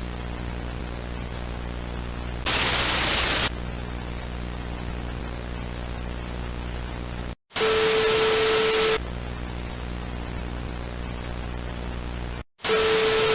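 Steady hiss of analog signal static over a low electrical hum, broken by three louder bursts of static lasting about a second each. The second and third bursts carry a steady tone, and each is preceded by a brief cut to silence.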